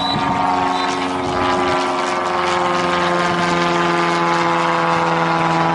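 A steady engine drone, a hum with many even overtones that sinks slowly in pitch.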